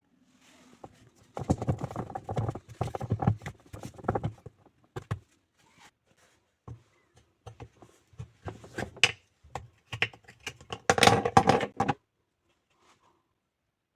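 Irregular clattering and knocking of hard objects being handled, in two spells a few seconds apart.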